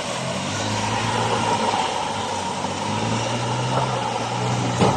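Off-road vehicle engine running steadily, with a sharp knock near the end.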